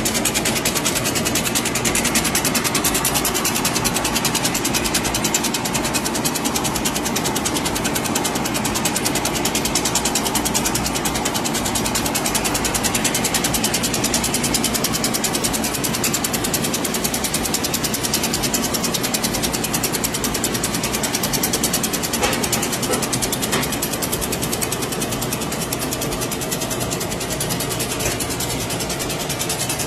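Chocolate enrobing machine running: its wire-mesh conveyor and drive make a steady, rapid, even mechanical ticking.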